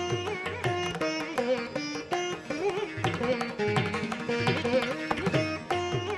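Indian classical-style instrumental background music: a plucked string melody with sliding notes over a steady hand-drum rhythm.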